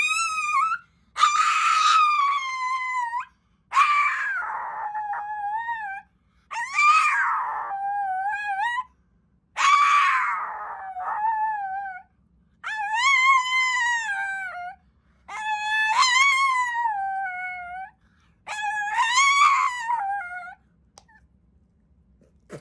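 A small dog howling: about seven long, wavering howls of around two seconds each, with short pauses between them, stopping near the end.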